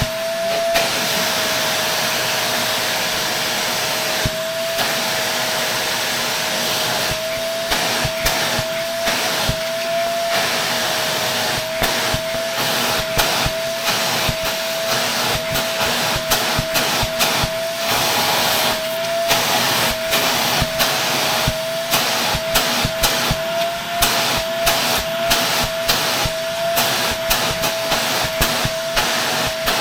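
Shark Navigator Lift-Away vacuum running steadily with a high motor whine and rushing air, sucking dust from another Shark's filter, with many short clicks and taps from about a quarter of the way in.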